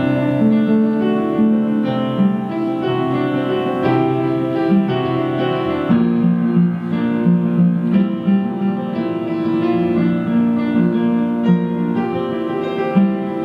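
Live keyboard music, held notes and chords shifting under a moving melody.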